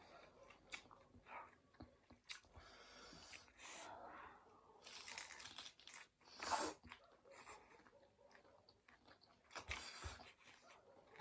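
Faint close-up eating sounds: a person chewing and crunching food, with scattered mouth clicks and a few louder bursts, the loudest about six and a half seconds in and another near ten seconds.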